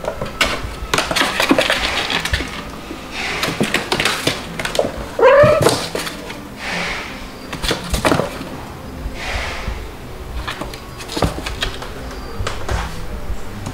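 Calico cat and white kitten play-fighting on a wooden floor: scuffling, claw scrabbles and light thumps, with one short meow about five seconds in.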